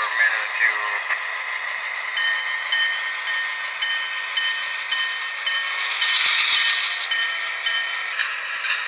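MTH HO-scale model diesel locomotive running slowly, its onboard sound system playing diesel engine sound through a small speaker. From about two seconds in, the locomotive bell rings at about two strokes a second, with a louder burst of hiss around six seconds in.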